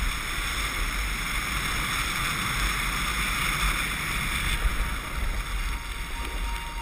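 Wind rushing over an action camera's microphone as a snowboard slides down a packed piste: a steady noisy rush with heavy low buffeting. The hiss eases a little about two-thirds of the way through, and a faint steady whine comes in near the end.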